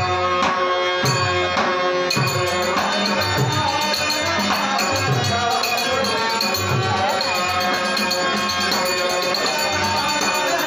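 Dashavatar folk-theatre music: a harmonium playing held chords, a man's singing voice, small hand cymbals ticking a quick steady beat that comes in about two seconds in, and a drum striking low, even strokes underneath.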